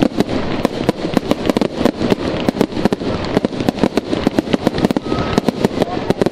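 Aerial fireworks going off in a rapid barrage: a continuous run of sharp pops and bangs, several a second, over a steady crackling haze.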